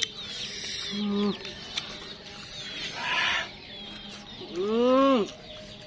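Small birds chirping in the background, with a short hum about a second in and a loud drawn-out vocal call that rises and falls near the end.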